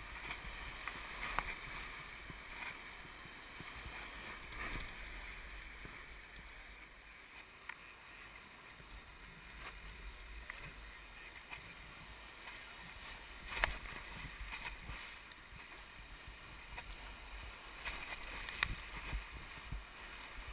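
Whitewater rapids rushing and splashing around an inflatable raft, a steady watery rush with a few sharp knocks.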